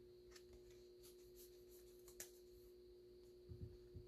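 Near silence: room tone with a faint steady hum, a few faint light ticks, and soft low thumps near the end.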